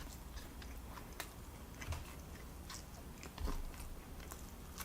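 A person chewing and biting food close to the microphone: faint wet mouth clicks at irregular intervals, with a slightly louder soft thump about three and a half seconds in.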